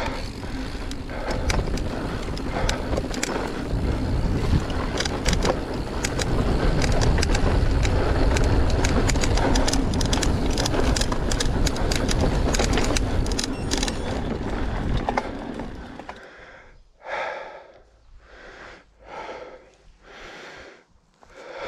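Mountain bike running over a rough woodland trail: wind rushing on the microphone, tyre noise and the bike rattling and knocking over bumps. About sixteen seconds in it slows and quietens, leaving the rider's quick heavy breaths, roughly one every two-thirds of a second.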